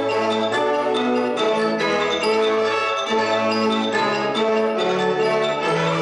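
Concert wind band playing: woodwinds and brass in sustained chords with moving lines, and struck mallet-percussion notes ringing over them.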